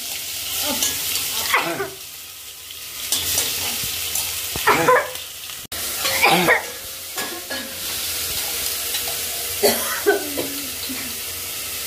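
Spices frying for a tadka (chhonk), sizzling steadily in hot oil in a pan. Several short vocal bursts break in over the sizzle.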